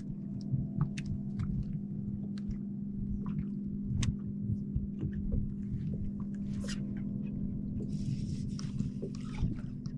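Bow-mounted electric trolling motor running with a low, steady hum, under scattered light clicks and knocks. A brief hiss comes about eight seconds in.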